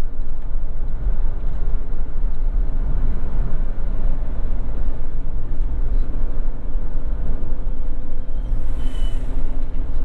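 Steady low rumble of a vehicle driving along a road: engine and road noise.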